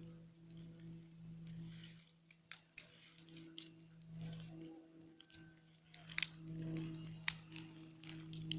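A low, steady droning hum, swelling and fading every second or so: the unexplained 'strange sound in the sky'. Sharp clicks and rustles sound over it, thickest from about six seconds in.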